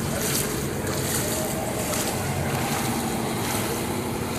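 Floodwater sloshing and splashing as someone wades through a flooded street, in washes every second or so, over a low rumble of motor traffic moving through the water.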